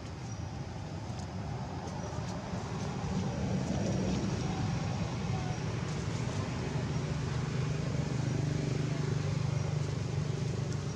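Motor traffic rumbling steadily, swelling about four seconds in and again near the end.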